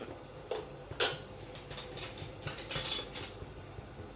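Light clinks and knocks of kitchen dishes and utensils being handled, a few sharp strikes with a small cluster about three seconds in.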